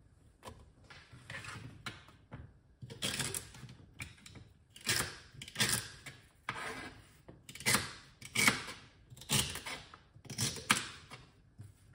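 Kitchen knife cutting crisp celery stalks on a cutting board: a series of short crunchy cuts, irregular at about one a second, louder from about three seconds in.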